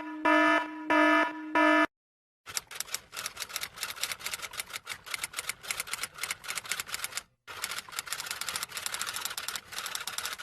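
Four short, evenly spaced electronic buzzer beeps, then rapid, uneven key clatter like fast typing on a keyboard or typewriter, broken by a brief pause about halfway through.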